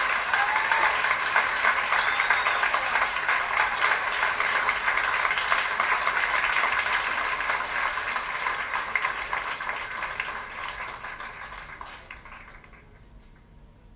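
Audience applause at the end of a live recording of a song, played back through hi-fi loudspeakers and heard in the room; it fades out over the last few seconds.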